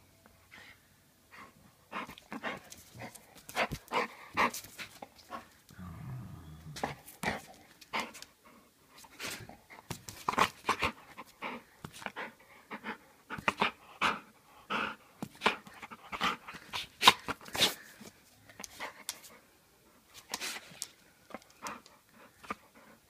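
Bull terrier breathing, sniffing and snuffling right at the microphone in short, irregular huffs, with a brief low growl about six seconds in.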